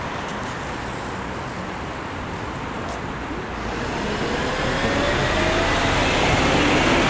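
Road traffic: a motor vehicle getting louder over the last few seconds, its engine note rising in pitch, over a steady rushing background.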